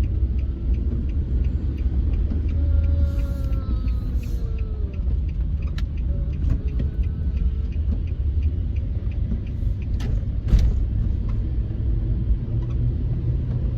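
Road noise inside a moving car: a steady low rumble from the car driving, with faint regular ticking through the first half and two sharp knocks about ten seconds in.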